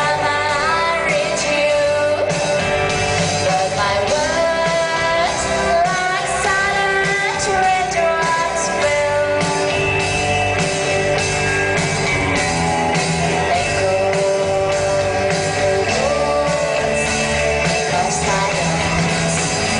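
A rock band plays an instrumental passage with no sung words: a gliding lead melody line over guitar and a steady drum beat.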